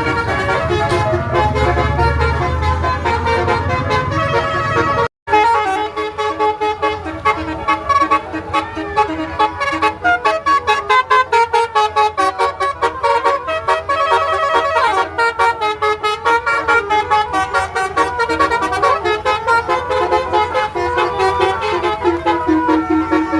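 Basuri telolet multi-tone bus horn playing a melody, its air-horn trumpets sounding quick stepped notes. A low rumble sits under it for the first five seconds. The sound cuts out for a moment about five seconds in, then the tune carries on with rapid repeated notes.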